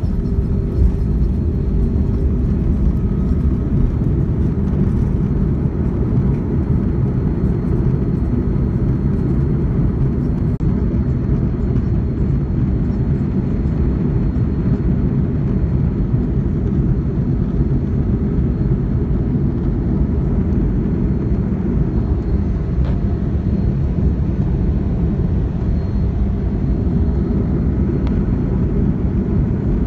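Airliner's turbofan engines at takeoff thrust, heard from inside the cabin as a loud, steady low rumble while the plane lifts off and climbs.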